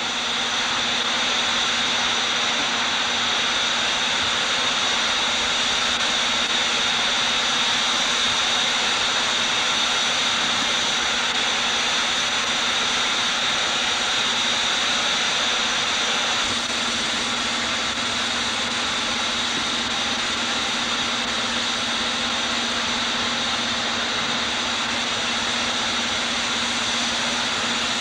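Steam escaping from a standing steam locomotive: a loud, steady hiss with a faint steady hum underneath, easing slightly a little past halfway.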